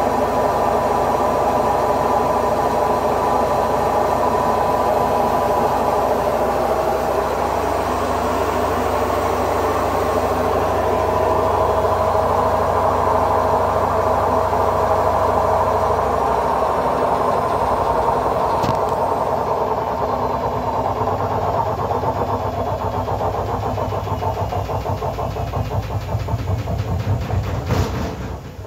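Haier HW60-10636A washing machine on its spin cycle, its motor and drum running with a steady hum and whine. Partway through the pitch shifts lower. Near the end there is a sharp click, and the sound drops away abruptly.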